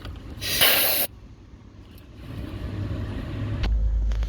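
One short hissing blast from a can of compressed air duster, lasting just over half a second, sprayed into a Chinese diesel heater to blow out dirt behind its E10 error code. A low rumble follows and builds toward the end.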